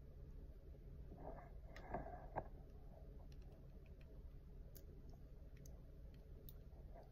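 Near silence with a few faint clicks and rustles as a curling wand is handled and hair is wrapped around it, the sharpest click about two and a half seconds in, over a low steady hum.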